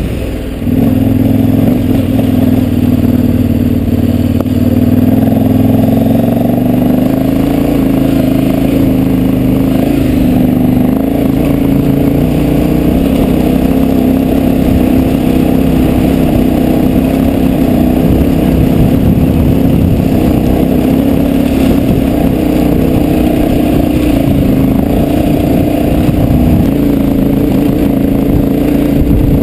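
KTM 1190 Adventure R's V-twin engine pulling steadily uphill on loose gravel, its pitch wavering as the throttle is worked to keep the rear wheel from spinning. The level dips briefly about half a second in, then holds.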